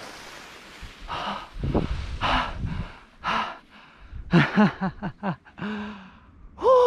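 A man breathing hard in gasps and sighs after a speed-flying landing. About halfway through come a run of short voiced huffs, and near the end a rising vocal "oh" of excitement.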